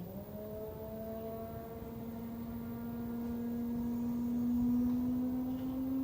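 Front-load washing machine's drum motor whining as the drum spins up: a steady tone that climbs slowly in pitch and grows louder.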